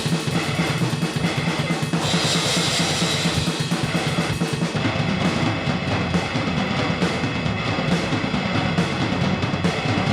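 Lo-fi grindcore/noisecore band recording: loud, dense, fast drumming with bass drum, snare and cymbals under a wall of distorted noise, the song already under way.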